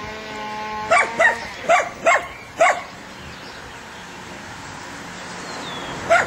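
A dog whining in one held tone, then five quick, sharp barks in a row, and one more bark near the end.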